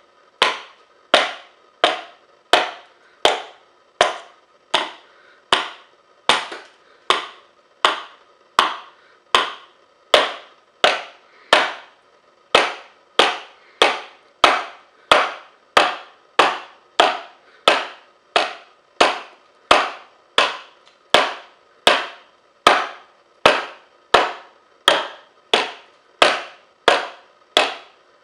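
Blade chopping into a wooden board in steady, evenly spaced strokes, a little under two a second, chipping flakes off the wood.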